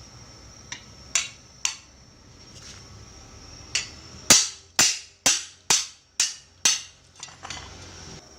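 Hammer blows that ring briefly after each strike. There are a few scattered strikes, then a run of six evenly spaced loud blows about two a second, then a couple of lighter taps near the end.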